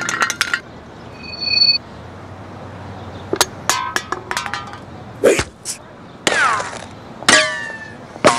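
A string of cartoon sound effects: quick clicks and knocks, a brief high ding, two falling whistle-like glides, and a metallic clang near the end.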